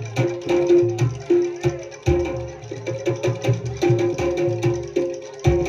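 Jaranan (kuda lumping) ensemble music: hand drums struck in a quick, sharp rhythm over short held pitched tones from the accompanying instruments.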